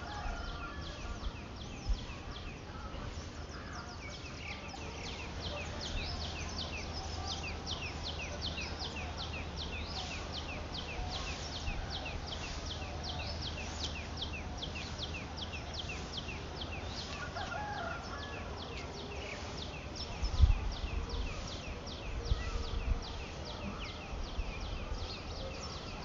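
Country chicken chicks peeping: a rapid run of short, high, falling peeps, several a second. A few low rumbles break in near the end.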